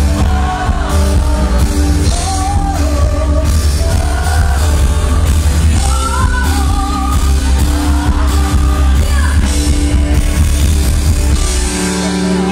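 Live rock-pop band playing: a woman sings the lead into a microphone over electric bass guitar and a heavy bass line. Near the end the deep bass drops away.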